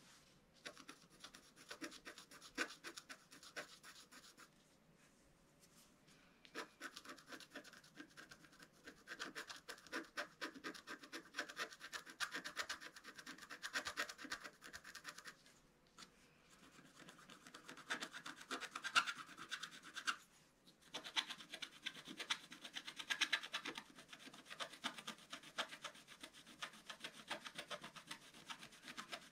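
Wooden stylus scratching the black coating off a scratch-art paper sheet in quick, rapid strokes, with a few short pauses.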